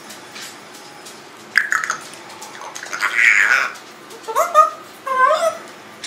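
Congo African grey parrot vocalizing: a short sharp sound about a second and a half in, a louder harsh squawk around three seconds, then two short pitched calls that rise and fall near the end.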